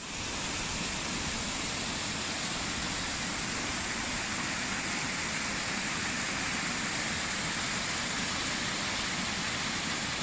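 Steady rush of fast-flowing water, an even noise with no breaks, starting abruptly at a cut.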